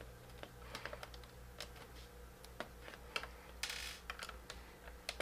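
Faint, irregular small clicks and scrapes of a small Phillips screwdriver working the two screws inside an iBook G4's battery compartment, with a brief rasp about three and a half seconds in.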